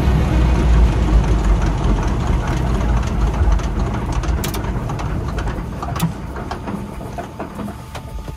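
Floatplane's piston engine running at low idle and winding down as the propeller slows, the engine sound fading steadily.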